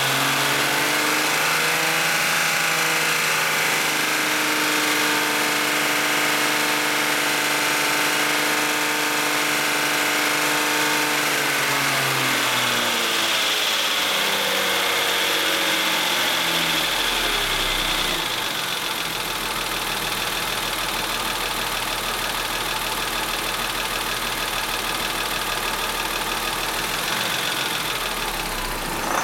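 BMW E39's M52 straight-six engine held at raised revs, then falling back toward idle about twelve seconds in and running on lower and a little quieter. The owner posts it as an engine problem with a bad sound.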